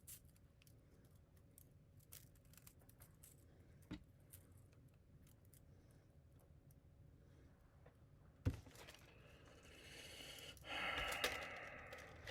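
Hands handling a spool of 3D printer filament: faint scattered clicks, a sharp knock about eight seconds in, then a few seconds of crinkly rustling and scraping near the end.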